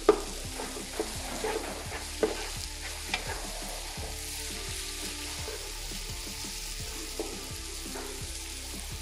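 Grated potato and carrot frying in butter in a stainless steel pot, sizzling steadily, while a wooden spoon stirs them and knocks and scrapes against the pot, with a sharp knock right at the start and a few smaller ones after.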